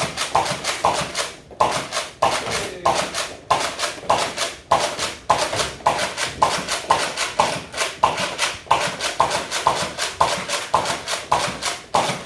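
Nerf Rival foam-ball blaster fired shot after shot, about two to three sharp pops a second in an even rhythm, emptying its roughly 30-round magazine.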